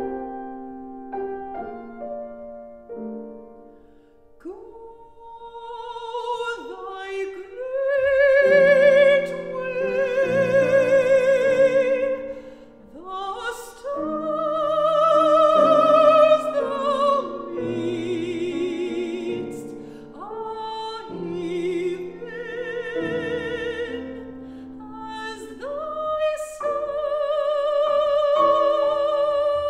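Mezzo-soprano singing a classical art song with strong vibrato, accompanied by grand piano. The piano plays alone for the first four seconds or so before the voice comes in.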